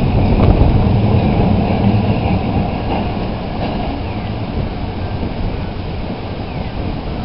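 Hakodate city streetcar running on its rails: a steady rumble of wheels on track that eases off slightly toward the end.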